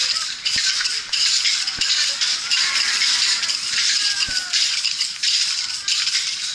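A penitent's flagellation whip, a bundle of bamboo sticks on a cord, swung over the shoulder against the bare back. The sticks rattle with each stroke, in a rhythm of about one stroke a second.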